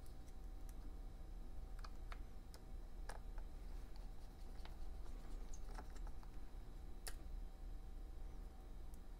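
Scattered small, sharp clicks and taps of a precision screwdriver and tiny screws against the aluminium case while the trackpad screws of a MacBook Air are driven in, with the sharpest click about seven seconds in, over a steady low hum.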